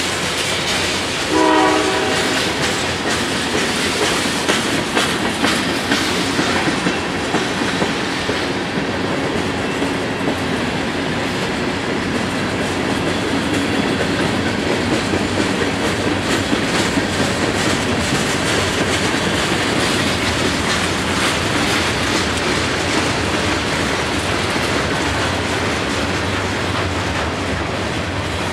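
Freight cars of a passing train rolling by at steady speed, wheels clicking over the rail joints over a continuous rumble. About a second and a half in, a brief pitched blast is heard, the loudest moment.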